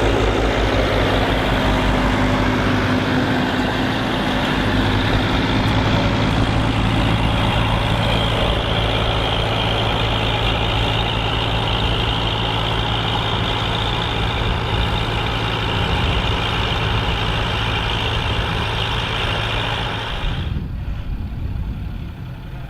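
Massey Ferguson 65 tandem tractor's engines running steadily while ploughing. About two seconds before the end the sound drops and loses its upper range.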